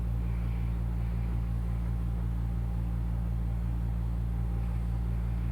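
Steady low background hum with a faint hiss over it, unchanging throughout, from a machine or electrical source in the room.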